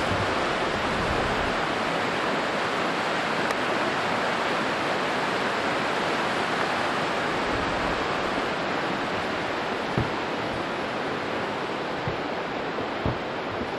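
Steady rush of a shallow, rocky river running through rapids over boulders, easing off a little toward the end. A couple of soft thumps come about ten and thirteen seconds in.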